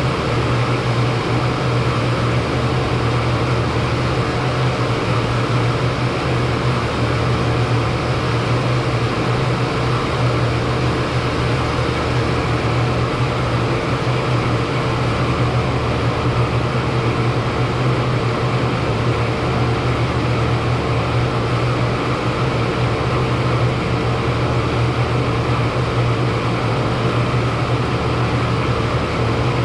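40-ton Trane HVAC unit running with a steady hum: a strong low hum and a fainter higher tone over an even rushing noise.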